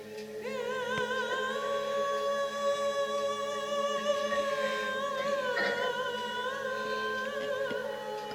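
Background music: a high solo singing voice holding long notes with vibrato, over a soft sustained accompaniment, changing note twice near the end.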